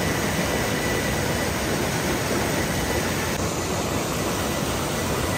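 Steady rush of a fast mountain stream tumbling over rocks.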